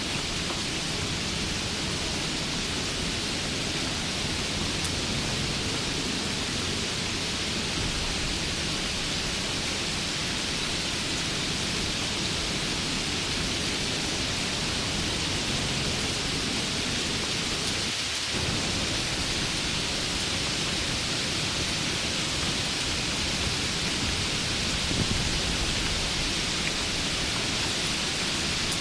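Steady rain falling, a continuous even hiss, with a low rumble underneath.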